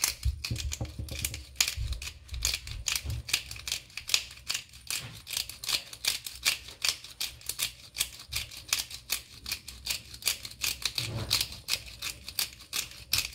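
Disposable pepper grinder, a glass jar of peppercorns with a red plastic cap, being twisted by hand: a rapid, even run of clicks from its grinding mechanism as ground pepper falls onto chopped herbs.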